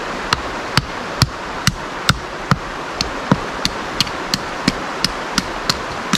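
A knife being batoned down through a stick of dry split firewood, its spine struck with a rock: a steady run of sharp knocks, about three a second. The steady rush of a creek runs underneath.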